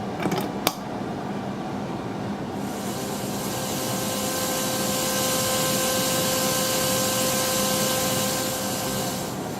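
Analog modular synthesizer output with white noise driving the VCA's control input: a harsh, steady hiss with a faint held tone beneath it. It comes in about two and a half seconds in, after a few sharp clicks, and stops just before the end.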